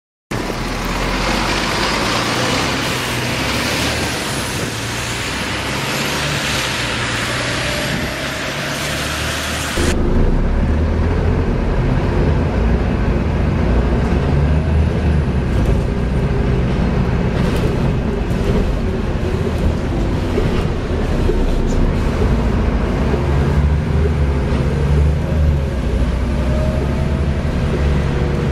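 Volvo B7TL double-decker bus's six-cylinder diesel engine running, the bus in service. About ten seconds in, a hiss falls away suddenly and the low engine note grows louder and heavier.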